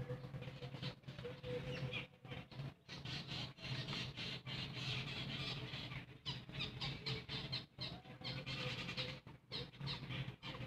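Eating by hand: fingers mixing rice on a brass plate and chewing, in short irregular bursts with brief gaps.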